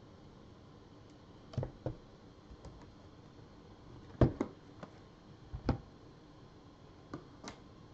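Cardboard trading-card boxes being handled and set down on a table: scattered knocks and taps, the loudest a little past the middle.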